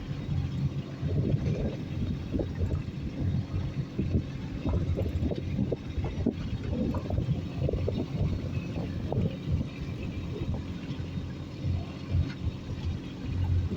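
A boat engine running steadily with a low, even hum, with irregular buffeting from wind on the microphone.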